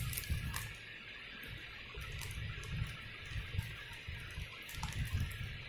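Clear plastic packaging rustling and crinkling as a bagged fibre-optic stripper is picked up and handled, with scattered small clicks and low handling bumps over a steady background hiss.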